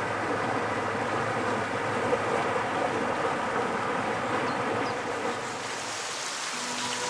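Narrowboat's engine running steadily as the boat cruises under way: a steady buzzing hum. It drops slightly near the end as soft music comes in.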